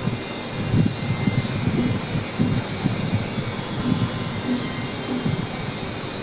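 Steady machine-like background noise with thin high whining tones, under irregular low rumbles.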